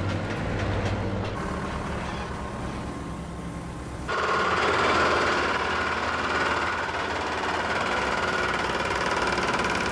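Skid steer's diesel engine running, then about four seconds in a hydraulic breaker on the skid steer starts hammering at a thick reinforced concrete core wall, a rapid steady rattle. The breaker is not getting through the concrete.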